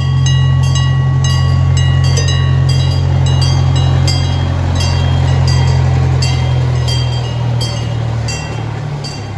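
Miniature CP Huntington-type park train locomotive running by, its engine a steady low drone, with a short high ringing repeated about twice a second over it. The sound eases off over the last couple of seconds.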